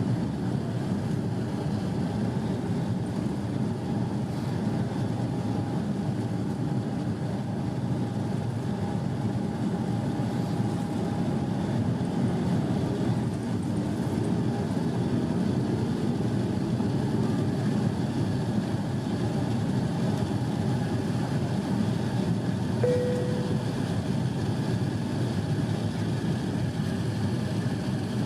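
Steady cabin noise of an Airbus A350-900 in flight or on its takeoff run: the Rolls-Royce Trent XWB turbofans and rushing air make an even, deep rumble with a faint steady hum above it. A short single tone sounds once, about two-thirds of the way through.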